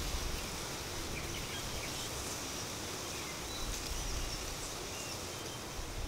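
Outdoor park ambience: scattered short bird chirps over a steady high hiss, with light wind in the leaves.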